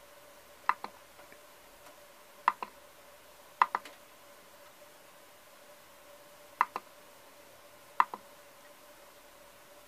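Five sharp double clicks from the push-and-turn selector knob of a Turnigy brushless motor analyzer as it is worked to set the motor's pole count, over a faint steady tone.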